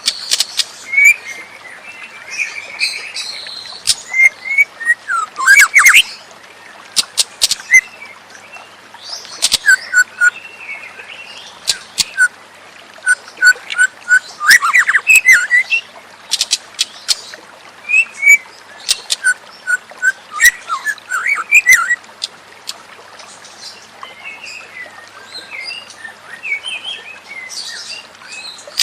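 White-rumped shama (murai batu) singing: a varied run of whistled phrases, quick chips and sharp clicking notes, in bursts with short pauses, over a steady hiss.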